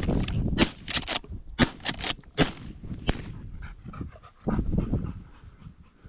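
Hunting dog panting, with a string of sharp crackles and snaps over the first three seconds, then a quieter patch.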